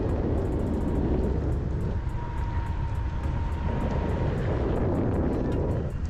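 Wind rushing over the microphone and tyre rumble from an electric scooter riding along asphalt, with a faint steady high whine in the middle.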